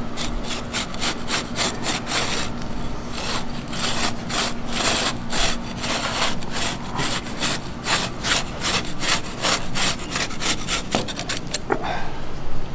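Multi-blade rotary candy cutter rolled back and forth through a slab of chocolate cookie bark, crunching through the cookies in rhythmic rasping strokes, about three a second.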